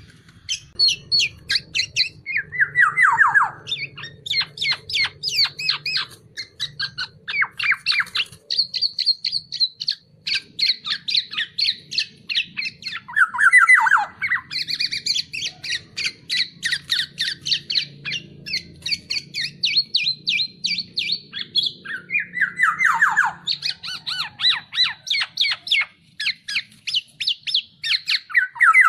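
Black-naped oriole (kepodang) calling noisily: long runs of quick, harsh, repeated notes, broken a few times by a louder squawk that slides downward in pitch.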